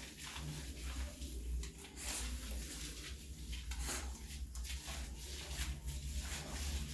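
A dog being washed by hand in a small tiled shower: scattered short wet rubbing and splashing sounds, over a steady low hum.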